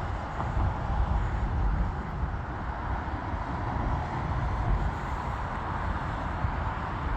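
Steady rumble and engine noise of an aircraft moving along the ground, with a heavy fluctuating low end and no change in level.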